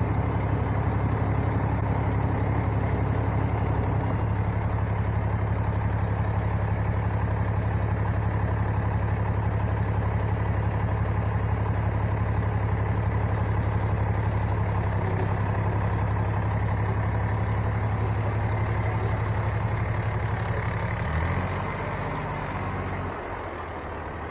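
Heavy diesel tow-truck engine running steadily during the boom lift. Its note drops near the end.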